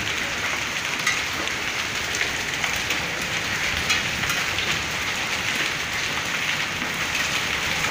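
Steady hiss of a heavy rain and hail shower, with scattered sharp clicks of hailstones striking hard surfaces.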